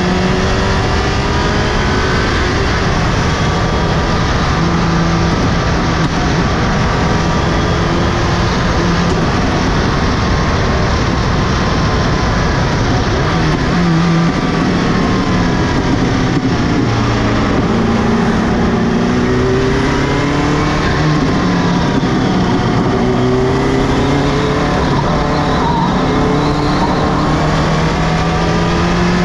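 Subaru Impreza GC8 rally car's turbocharged flat-four engine running hard on a tarmac stage, its pitch climbing and dropping again and again through gear changes.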